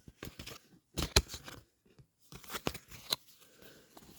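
Trading cards being handled: a run of crisp clicks and short rustles as cards are flicked through and set down.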